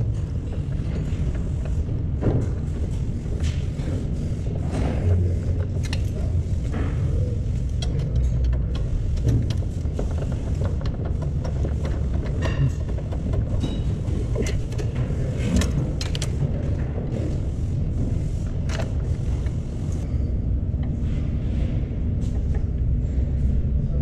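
Socket wrench clicking and tapping against metal now and then, at irregular moments, as engine-mount bolts are worked from under the car, over a steady low rumble.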